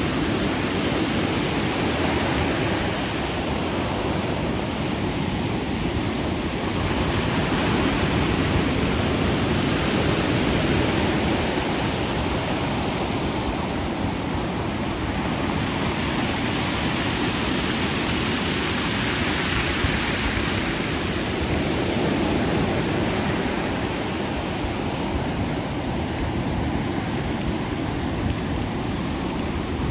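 Ocean surf: a steady wash of breaking waves, swelling and easing slowly every several seconds.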